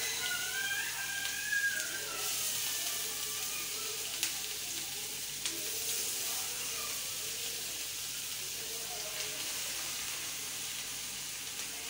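Shami kababs shallow-frying in oil on a tawa: a steady sizzle, with a few light clicks as patties are set into the pan.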